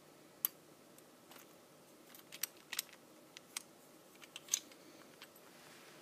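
Lock pick and tension tool working the pins of a Master Lock 410 lockout padlock as it is picked open: about a dozen small, sharp metallic clicks at uneven intervals, the loudest about half a second in and about four and a half seconds in.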